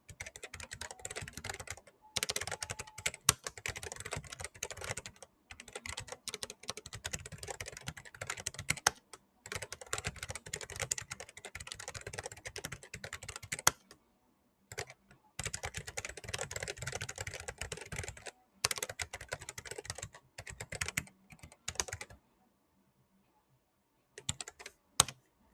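Fast typing on the Riskeyboard 70 hall effect mechanical keyboard, its switches lubed and broken in: quick runs of key clicks and clacks broken by short pauses, with a longer pause near the end followed by a few final keystrokes.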